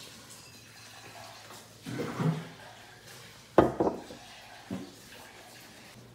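Dishes handled on a wooden tabletop: a short clattering scrape about two seconds in, then a sharp knock with a quick rattle as a ceramic bowl is set down, and a lighter knock about a second later.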